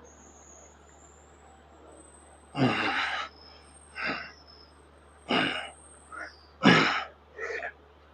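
A man breathing out hard with effort during an exercise set: after a quiet couple of seconds, about six sharp, breathy exhalations come roughly a second apart.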